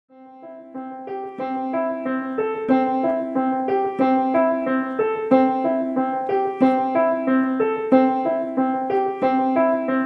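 Solo piano music: a steady pattern of broken chords over a repeated low note, fading in over the first second or so.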